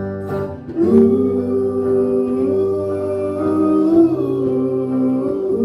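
A wordless vocal melody, held and gently sliding in pitch, over a steady guitar accompaniment in a folk song. It begins about a second in.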